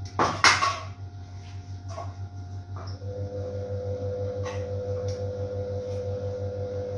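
Siemens Siwamat Plus 573 front-loading washing machine running, its drum turning the laundry with a pulsing low hum. There is a loud knock about half a second in, a few faint clicks after it, and from about three seconds in a steady whine joins the hum.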